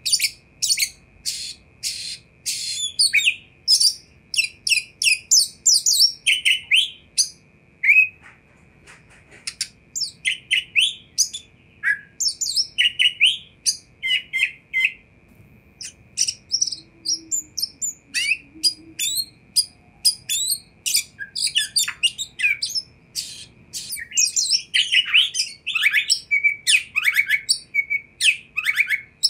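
Oriental magpie-robin (kacer) singing: a fast, varied run of sharp, high chirps and whistles, with a short lull about a third of the way in and quieter notes around the middle before the song picks up again.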